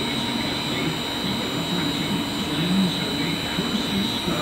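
Weiler Omni V220 meat grinder running empty, its stainless steel auger turning in the hopper: a steady machine drone with a constant high whine over it.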